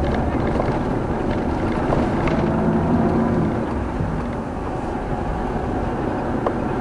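Car driving along a road, heard from inside the cabin: steady engine and road noise with a few small knocks.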